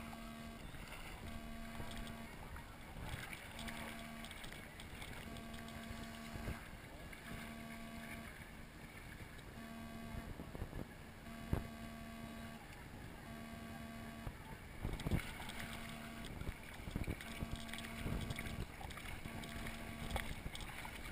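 Water lapping and sloshing against an inner tube drifting on a lazy river, with a few sharp knocks and splashes. A low tone pulses on and off about every second and a half.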